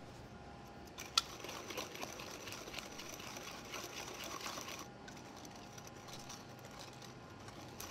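Wire whisk beating a runny sugar-and-egg filling in a stainless steel mixing bowl: fast, rhythmic scraping and clinking of the wires against the metal, with a sharp clink about a second in. The whisking gets quieter about five seconds in.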